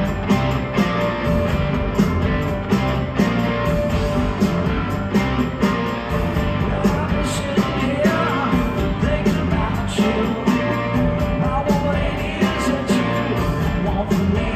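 Rock band playing live: drums keep a steady beat about twice a second under electric and acoustic guitars, bass and keyboards, heard from among the audience.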